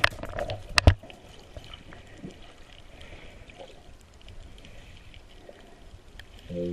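Water sounds at a river: a few splashes and knocks in the first second, the loudest a sharp knock about a second in, then a faint steady rush of water. Music comes in just before the end.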